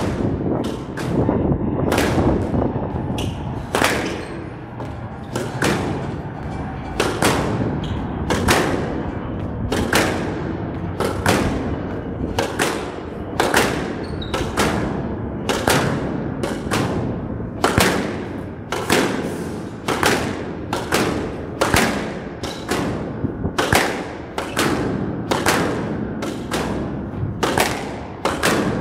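Squash ball cracking off rackets and the court walls in a fast rally, sharp pops about once or twice a second with a short ringing echo, over a steady low background.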